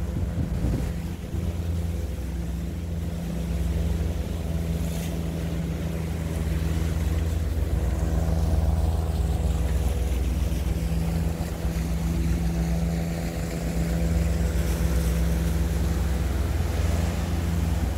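A sailing catamaran's twin motors running steadily under heavy load, driving the boat against a strong outgoing current, with water rushing past the hulls and wind on the microphone. The engine pitch lifts a little twice.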